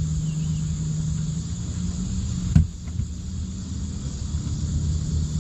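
A steady chorus of crickets with a constant low hum beneath it. A single sharp knock comes about two and a half seconds in.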